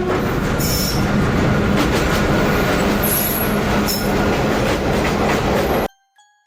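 Train running by, a loud rumble and clatter of rail wheels with a couple of brief high wheel squeals; it cuts off suddenly near the end, and a short run of tinkling chime notes follows.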